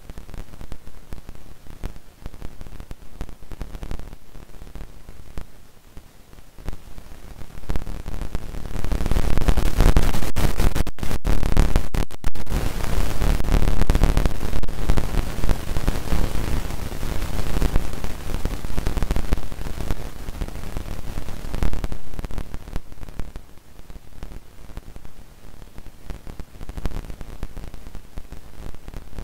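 Crowd noise in an indoor sports hall, an even hiss-like din that swells loud for about fourteen seconds in the middle and then falls back, with a couple of brief dropouts near its peak.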